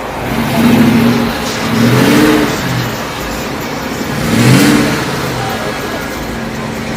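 A car engine revved three times in quick succession, each rev rising in pitch and falling back.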